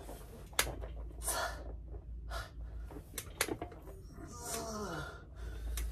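A man's hard breathing while straining through Bulgarian split squats beyond failure: forceful exhales and a short grunt that drops in pitch near the end, with a few light knocks in between.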